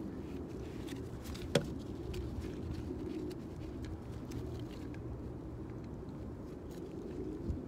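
Hand crimping tool squeezing butt connectors onto trailer brake-magnet wires: faint ticks of handling, with one sharp click about a second and a half in and a softer one near the end, over a steady low background rumble.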